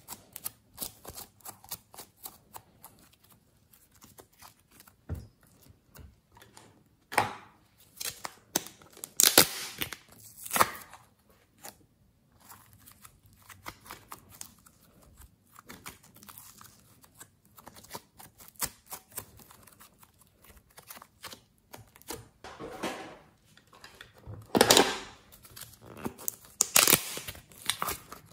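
Soft slime being squeezed, kneaded and stretched by hand: irregular sticky clicks, crackles and squelches. Louder clusters of crackling come about seven seconds in, again around nine to ten seconds, and near the end.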